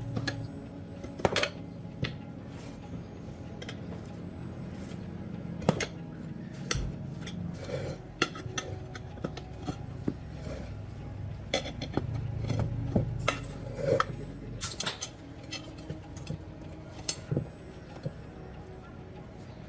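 Metal parts and hand tools clinking and clattering irregularly, many sharp clicks and knocks, as motorcycle parts are handled and worked on, over a low steady hum.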